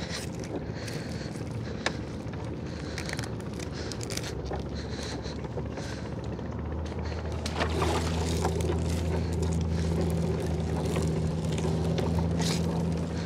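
A small boat's engine running steadily, its hum growing louder about seven and a half seconds in. Light scattered knocks and clicks sound over it as a gill net is hauled in by hand.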